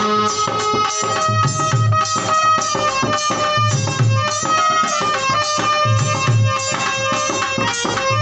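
Harmonium playing a held, sustained melody over a dholak's steady rhythmic beat: an instrumental interlude in a Hindi devotional bhajan.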